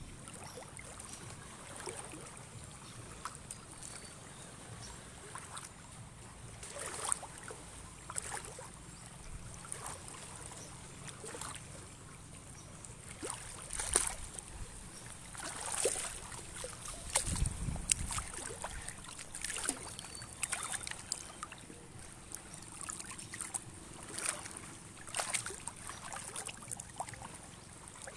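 Shallow seawater lapping and sloshing at the shoreline in irregular splashy surges, with a brief low rumble about seventeen seconds in.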